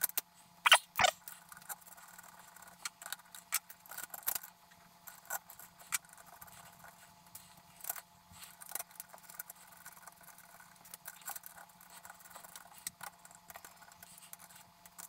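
Irregular small clicks, taps and scrapes of hands fitting a small cooling fan and its screws into a metal equipment case, with a couple of sharper clicks about a second in, over a faint steady hum.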